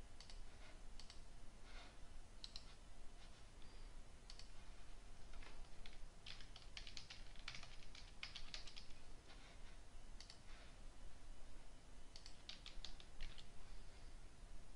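Faint typing on a computer keyboard, in short quick runs of keystrokes with a few separate clicks between them.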